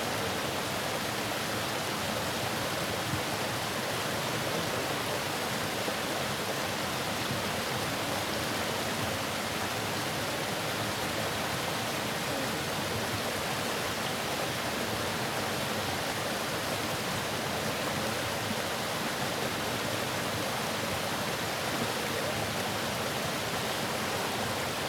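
Waterfall rushing steadily, an even hiss of falling water with no change in level.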